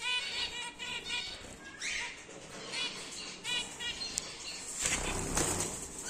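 Caged cockatiels and finches chirping in quick runs of short calls, then a burst of wing flapping near the end.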